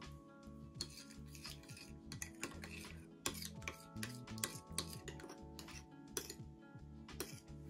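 Metal teaspoon stirring baking soda into sour cream in a ceramic bowl: repeated clinks and scrapes of the spoon against the bowl, over background music.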